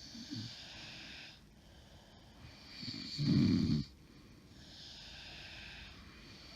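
A woman snoring in her sleep: a hissing breath, then about three seconds in one loud, deep snore lasting about a second, then another long hissing breath. Her snoring is what the uploader takes for a sign of sleep apnea.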